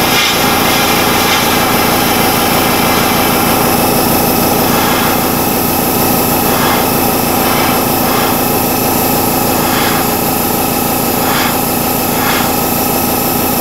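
Steady motor hum and hiss of an airbrush compressor and paint-booth fan running, with several short hissing bursts of the airbrush spraying paint in the second half.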